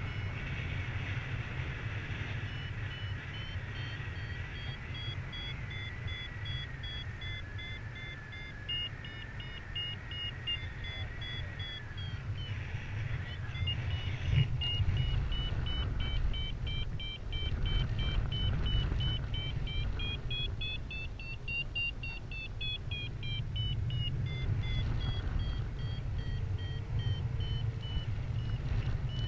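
Paragliding variometer beeping in short repeated beeps whose pitch rises and falls, highest about three quarters of the way through, as the glider climbs in lift. Under it, a steady low rumble of wind on the microphone.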